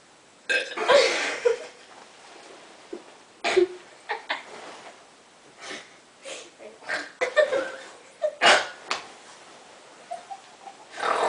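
A person's voice in short, sudden bursts, about a dozen of them, loudest just after the start and again past the middle.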